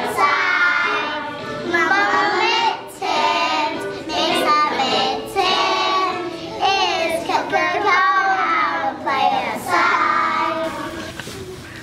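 A group of young children singing a song together in short phrases; the singing fades near the end.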